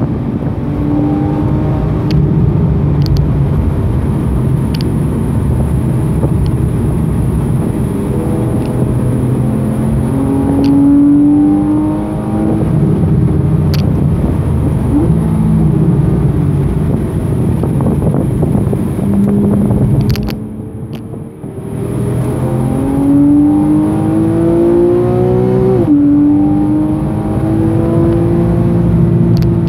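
Porsche 991.1 Carrera's flat-six engine heard from inside the cabin, driven hard on track: its pitch climbs under acceleration and drops sharply at each upshift. Partway through it goes briefly quieter as the driver lifts off, then pulls up through the gears again.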